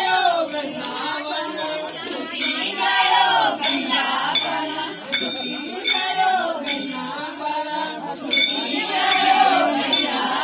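A group of women singing a Kumaoni jhoda folk song together, with a sharp click keeping a steady beat under the voices, a little under two a second.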